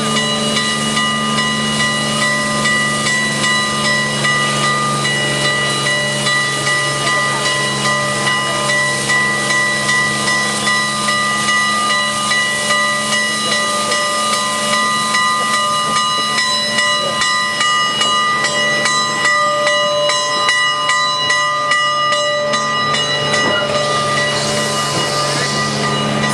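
Southern Pacific 4449, a GS-4 4-8-4 steam locomotive, blowing off a steady hiss of steam with several held tones through it and a light, regular pulsing.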